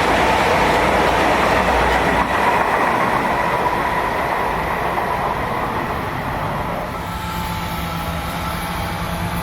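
A train passing, with a steady rumble of wheels on the rails. It eases off slightly after about seven seconds, when a steady hum comes in.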